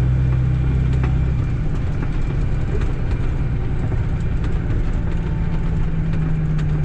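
Cat C13 inline-six diesel of a Kenworth W900B dump truck running while driving, with road noise. A steady engine tone gives way to a rougher, uneven rumble about a second and a half in, and a steady tone comes back near the end.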